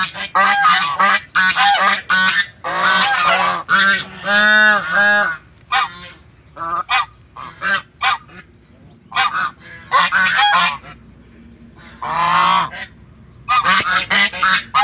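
Domestic geese honking repeatedly. A run of dense, overlapping calls lasts about five seconds, then scattered honks follow with short pauses between them.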